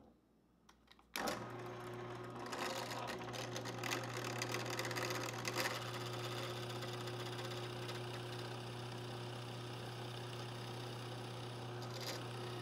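Benchtop drill press motor switches on about a second in and runs with a steady hum while the bit bores into a hickory blank.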